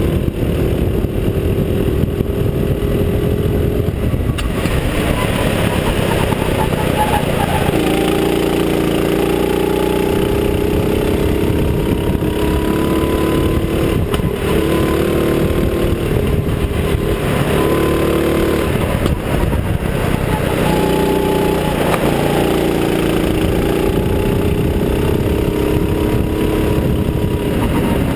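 Go-kart engine running at racing speed, its pitch climbing and falling back repeatedly as the throttle is worked through the corners.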